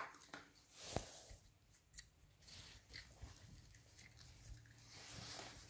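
Near silence: room tone with a few faint clicks, about one a second for the first few seconds.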